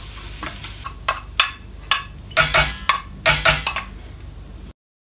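Silicone spatula knocking and scraping against a small nonstick pan as a hot garlic-and-spice tempering is tipped into a saucepan of cooked mango. A light sizzle dies away about a second in, then comes a run of sharp knocks and clinks, and the sound cuts out abruptly near the end.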